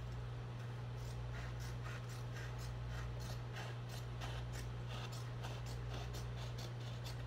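Scissors cutting through excess canvas cloth: a run of quick snips starting about a second in, over a steady low hum.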